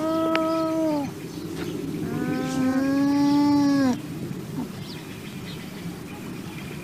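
Llama humming: two drawn-out nasal hums, the first about a second long and the second nearly twice as long, each dropping in pitch as it ends.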